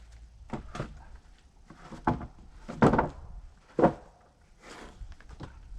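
Freshly sawn boards knocking and clattering as they are handled and set down on a sawhorse: a series of separate wooden thunks, a second or so apart.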